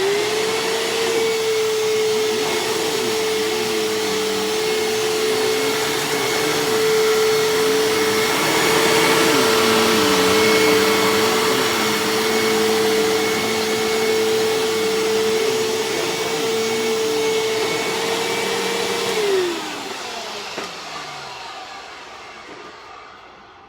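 Hoover Tempo bagless upright vacuum cleaner switched on and running with a steady high motor whine over shredded paper. About 19 seconds in it is switched off, and the whine falls in pitch and fades as the motor spins down.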